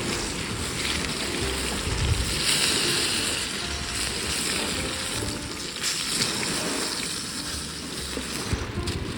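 Waves washing on a lakeshore with wind rushing over the microphone, swelling louder about two seconds in.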